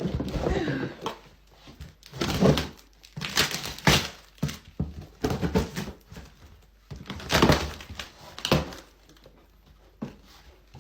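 A parcel being opened by hand: a string of irregular rustling and ripping strokes of packaging, with a few knocks in between.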